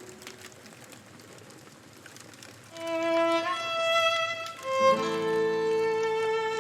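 Slow violin melody that enters about three seconds in, playing long held notes. Before it there is only a faint noisy campfire crackle.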